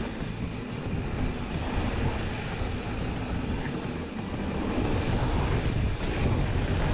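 Wind buffeting an action camera's microphone with the rumble of mountain bike tyres rolling over a dirt trail. It grows louder about five seconds in as the bike picks up speed.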